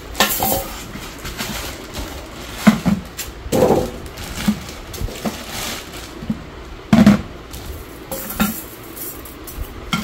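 Stainless-steel wire microwave grill racks clinking and knocking as they are handled and set down, mixed with rustling of plastic packaging. Irregular knocks, the sharpest about three seconds in and about seven seconds in.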